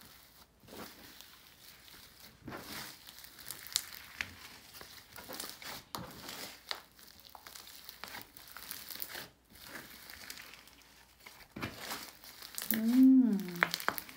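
Hands kneading and stretching slime, folding a glossy green slime into a fluffy, airy one: an irregular wet crackling and crinkling with scattered small pops. Near the end a person's voice sounds briefly.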